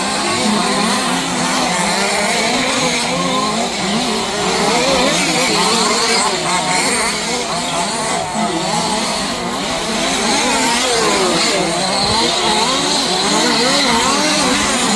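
Several 1/5-scale petrol RC off-road cars' small two-stroke engines running at once, their pitches rising and falling as they rev through the laps.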